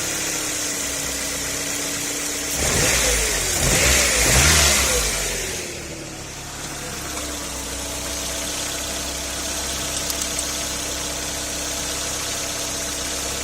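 Nissan Primera P10 inline-four engine, freshly fitted with a new timing chain and running on LPG, idling steadily, revved briefly about three seconds in, its pitch rising and falling, then settling back to a steady idle.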